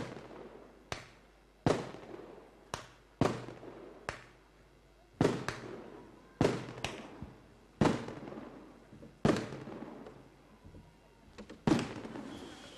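Fireworks exploding overhead: about a dozen sharp bangs at irregular intervals, roughly one a second, each trailing off in a short echo.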